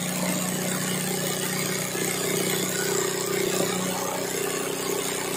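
Sewing machine running steadily, stitching free-motion embroidery as the hooped fabric is moved by hand: an even, unbroken hum.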